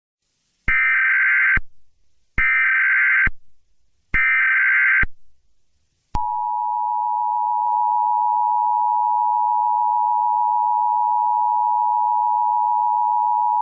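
Emergency Alert System tones: three one-second bursts of SAME digital header data, then the steady two-tone EAS attention signal from about six seconds in.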